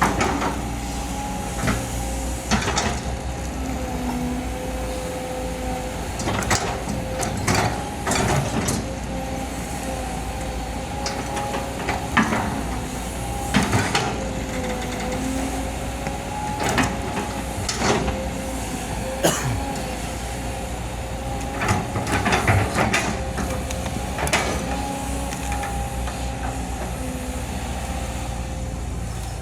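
Excavator running steadily at working load, with a sustained engine and hydraulic drone, broken by many sharp, irregular knocks and cracks as it works the ground.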